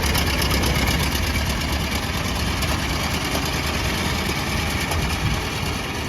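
Ford Model T four-cylinder engine running steadily.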